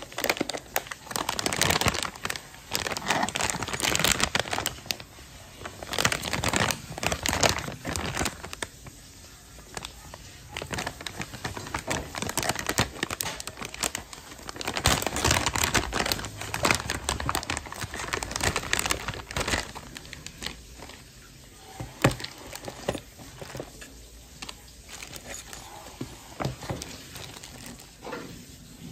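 Metallic anti-static shielding bag and clear plastic packaging bag crinkling as they are handled and lifted out of a cardboard box. The crinkling comes in dense, irregular stretches, heaviest in the first few seconds and again about halfway through, then thins to scattered rustles with an odd sharp click.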